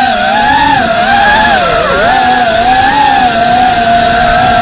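Motors and propellers of a 3.5-inch FPV quadcopter whining in flight, the pitch wavering up and down with the throttle and dipping about two seconds in.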